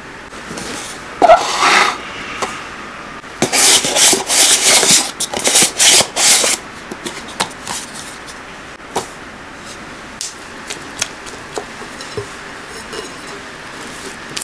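Kitchen handling sounds: a sharp knock with a brief glassy ring about a second in, like a whisk tapped on a glass mixing bowl, then about three seconds of loud rough rubbing strokes, followed by scattered light taps and clicks as a plastic yogurt carton is handled on a wooden board.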